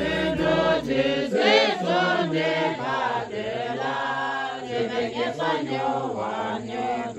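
A group of Tibetans chanting a prayer together in a slow, sung melody. A low backing-music bass drops out about a second in.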